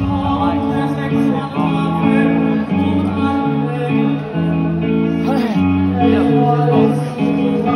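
Live band music: a passage led by guitar over a stepping bass line and sustained chords, with a brief rising voice a little past the middle.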